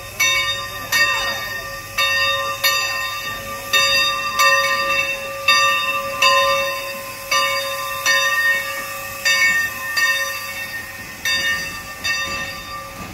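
Steam locomotive No. 28's brass bell ringing steadily, struck about once a second, each ring carrying on until the next.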